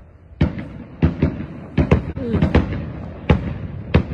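Fireworks exploding: about nine sharp bangs in quick succession, some only a fraction of a second apart.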